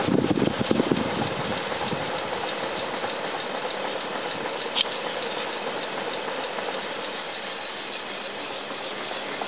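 Antique AWE Stirling hot-air wall fan running: a steady rushing mechanical noise, with an uneven low rumble that fades over the first couple of seconds and one light click about five seconds in.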